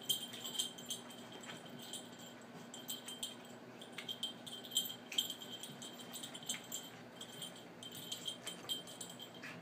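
Pet collar jingling in quick, irregular clinks as a small dog and a cat tussle.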